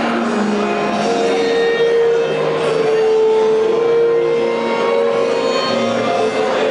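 Instrumental music with a melody, one note held for several seconds through the middle.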